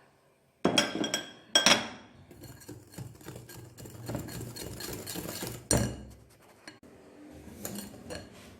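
A spoon clinking and knocking against a mixing bowl as yogurt is added to the batter: two sharp knocks about a second in, lighter scraping and clatter after, and another sharp knock near six seconds.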